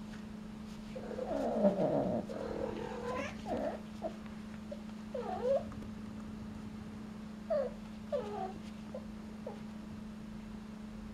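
Domestic cats yowling during and just after mating: a loud drawn-out yowl that falls in pitch about a second in, then a string of short, bent cries every second or two.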